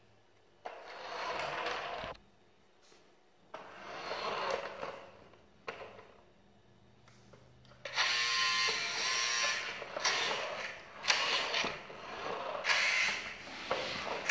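Remote-control toy car's small electric motor and gears whirring in bursts as it is driven: short runs of about a second and two seconds, then a longer stretch of stop-and-go runs in the second half, with a brief high whine about eight seconds in.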